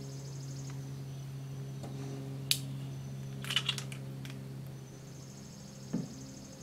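Small metal clicks and taps from an Uberti Walker cap-and-ball revolver being taken apart by hand: one sharp click about two and a half seconds in, a quick cluster of clicks around three and a half seconds, and a duller knock near six seconds. A steady low hum and a pulsing insect buzz run underneath.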